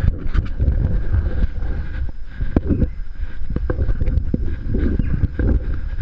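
Wind buffeting the microphone of a head-mounted action camera, with irregular knocks and rattles from hands and feet moving along a monkey bridge's steel cables.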